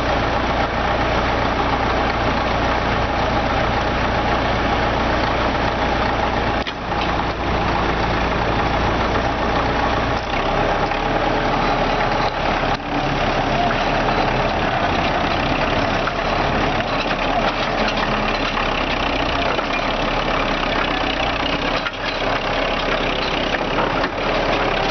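Heavy diesel engine running steadily, its low note shifting about ten seconds in.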